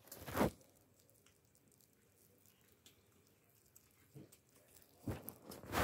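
Stray cats chewing their food faintly, with a few brief scuffing noises about half a second in and again near the end.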